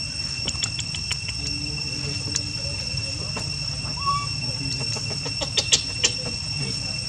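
Insects droning at a steady high pitch, with scattered light clicks and crackles, a few sharper ones near the end, over a low steady rumble.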